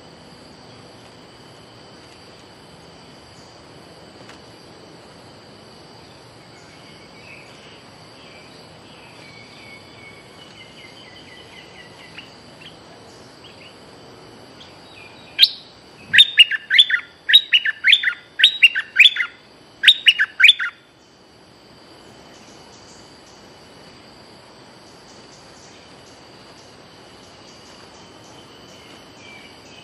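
Bulbul song: faint calls at first, then about halfway through a loud, rapid string of falling whistled notes lasting about five seconds, with a short break before the last few. A steady high insect drone continues underneath.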